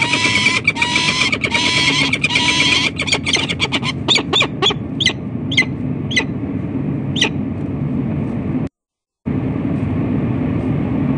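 Peregrine falcons calling at a nest ledge: harsh, repeated calls about twice a second, giving way about three seconds in to a series of short, sharp cries that sweep downward in pitch and stop about seven seconds in. After that only a steady rush of wind and city noise on the nest-cam microphone, which cuts out for half a second near the end.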